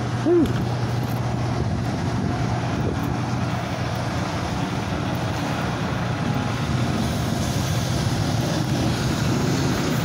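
Steady low drone of running vehicle engines, with a constant hum, and a brief rising-and-falling tone just after the start.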